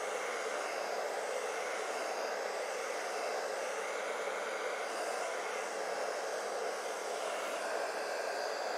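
Handheld hair dryer running steadily, blowing a constant stream of air.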